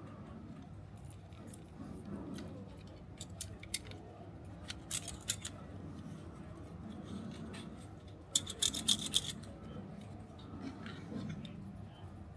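Small plastic parts of a toy pistol being handled and fitted together: scattered light clicks, then a quick run of clicking a little past the middle.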